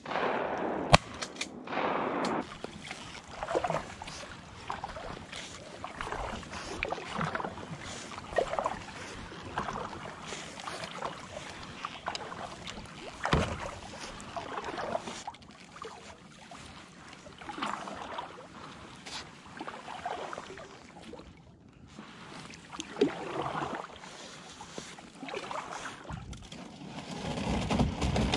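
A single shotgun bang about a second in, then a kayak paddle dipping and splashing in calm water, one stroke every second or two. Near the end the kayak hull pushes through shoreline brush, louder and rustling.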